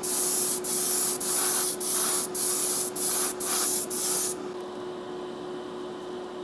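Airbrush spraying Createx Auto-Air sealer in about eight short hissing bursts, roughly one every half second, stopping about four seconds in. A steady hum runs underneath.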